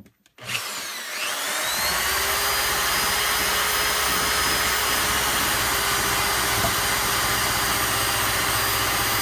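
Electric drill fitted with a small cleaning attachment starting up about half a second in, its whine rising as it spins up, then running steadily at high speed on the stove's cast iron.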